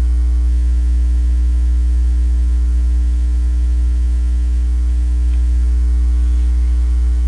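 Steady, loud electrical mains hum with a ladder of higher hum tones; nothing else is heard.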